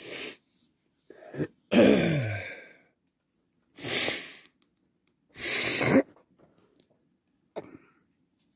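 A man coughing: several short breathy bursts, the second with a falling voiced tone.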